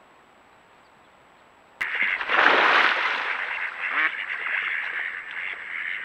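Low hiss, then about two seconds in a sudden loud rush of noise, followed by Mexican ducks quacking repeatedly.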